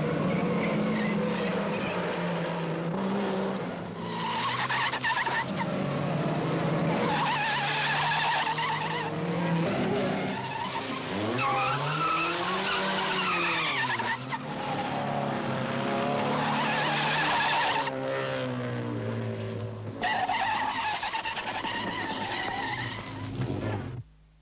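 Rally cars driven hard through a tight test course, one after another: engines revving up and dropping back repeatedly, with tyres squealing through the corners. The sound breaks off suddenly at the end.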